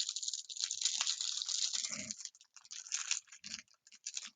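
Crinkly plastic bag holding cross-stitch threads being handled and pulled at while someone tries to open it. Dense crackling for about the first two seconds, then sparser crinkles.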